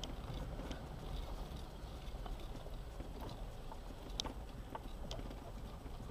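An off-road vehicle driving slowly along a gravel dirt track: a steady low rumble of engine and tyres, with irregular clicks and knocks from stones and rattles, the sharpest about four seconds in.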